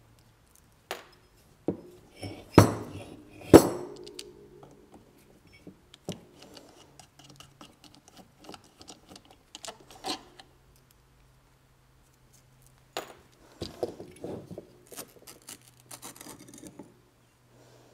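A screwdriver and small screws clinking against the metal housing of a centrifugal coolant pump as it is unscrewed and taken apart. Two sharp metallic clinks that ring briefly come about two and a half and three and a half seconds in. Scattered small taps and rattles of parts being handled follow.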